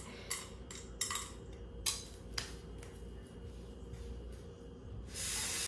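Dishes and cutlery clinking and clattering, a handful of sharp separate clinks over the first two and a half seconds, then a brief hiss near the end.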